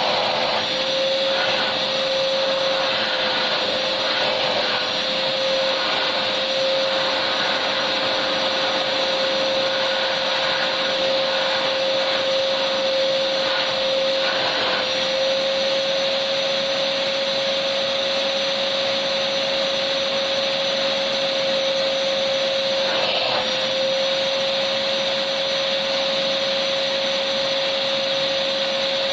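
Vacuum cleaner running steadily: an even motor hiss with a constant whine.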